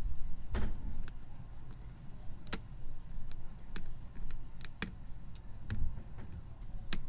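Lock pick working the pins of a pin-tumbler challenge lock under a hex-key tensioner: sharp, irregular metallic clicks as pins are lifted and released.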